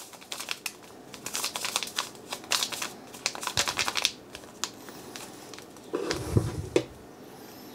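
Crinkling of a paper-and-foil packet of dry yeast being handled, a dense run of small crackles for about four seconds. A few dull knocks follow about six seconds in.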